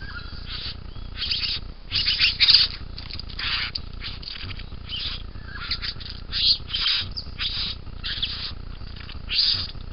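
Young satin bowerbird giving a run of short, harsh, buzzy calls, two to three a second, loudest a couple of seconds in.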